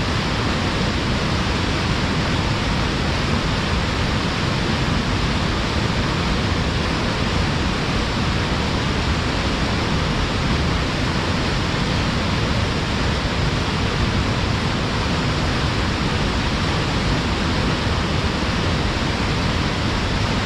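Small waterfall pouring hard between rocks, a steady rushing roar of falling water.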